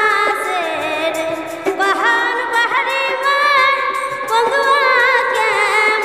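Woman singing a Bengali bicched (sorrowful folk) song into a microphone, holding long notes that waver and slide between pitches.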